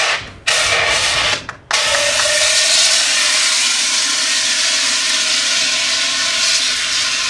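Portable fire extinguisher discharging: a few short hissing bursts as the trigger is squeezed and released, then, from a little under two seconds in, one unbroken loud hiss.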